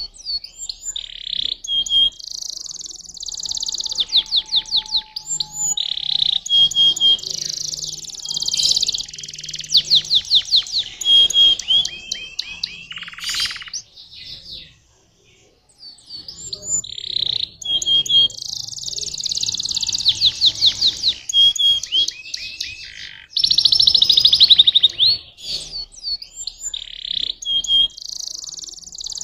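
Domestic canary singing: long song phrases of rapid trills and quickly repeated notes, broken by a pause of about two seconds midway.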